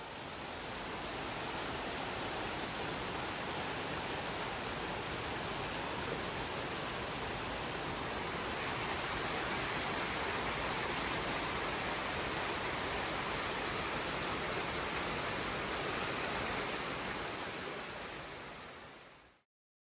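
Steady, even rushing of water, like heavy rain or a stream. It fades in at the start and fades out quickly a little before the end.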